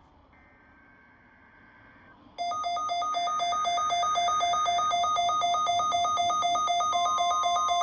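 NOAA Weather Radio weekly test alert signal: after a couple of seconds of faint hiss, loud electronic tones start suddenly about two and a half seconds in, alternating rapidly in a fast, even pulsing pattern. A steady tone joins near the end.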